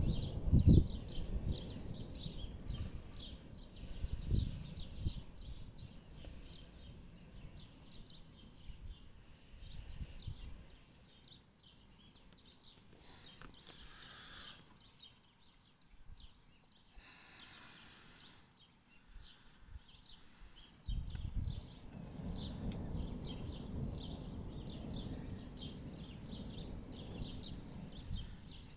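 Distant thunder rumbling low, fading away over the first ten seconds and rolling in again about twenty seconds in, with small birds chirping throughout.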